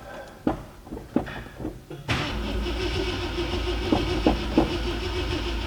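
A few light knocks, then about two seconds in the 1966 Thunderbird's V8 starts being cranked by its starter and keeps turning over steadily, with a few sharp ticks partway through. It has sat for months on a jump-started battery, and the owner suspects the gasoline in the carburetor has evaporated.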